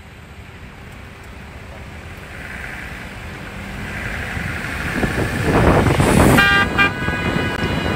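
Car driving slowly, its road and wind noise growing louder, then a car horn honking near the end: a short blast followed by a longer one.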